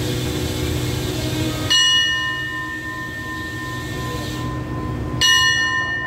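Station departure bell struck twice, about three and a half seconds apart, each strike ringing out and slowly fading, over the steady low hum of the train's idling diesel locomotive.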